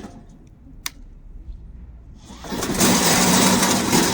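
Brushless electric track drive motors of a remote-control crawler mower, quiet at first, then running again loudly with a steady hum from about two and a half seconds in; a single sharp click comes just under a second in.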